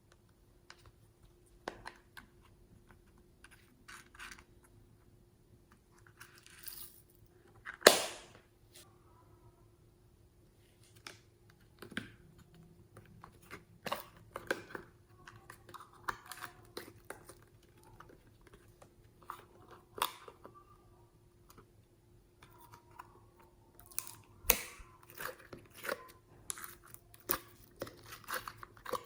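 Slime being squished and stretched by hand: scattered sticky clicks, pops and crackles, the loudest pop about eight seconds in, over a faint steady hum.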